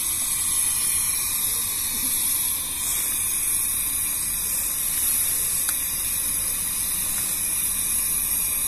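Portable butane camping stove burner hissing steadily.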